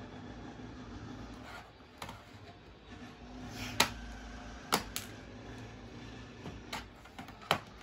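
Plastic retaining clips of a Dell Inspiron 5559 laptop's bottom cover snapping loose as it is pried off by hand. About half a dozen sharp clicks, the loudest near four seconds in.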